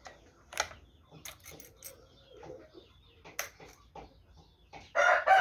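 Scattered light clicks and knocks over faint chicken clucking, then a rooster starts a loud crow near the end.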